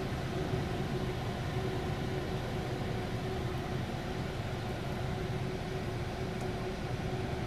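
Freight train of tank cars rolling past: a steady, even noise, heaviest in the low range, heard muffled from inside a car's cabin.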